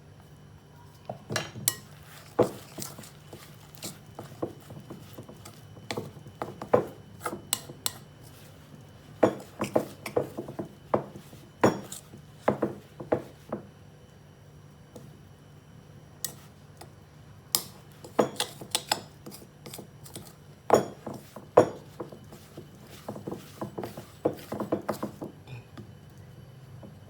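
Kitchen utensils clinking and knocking against a bowl and dishes, in irregular clusters of sharp taps with a short pause about midway.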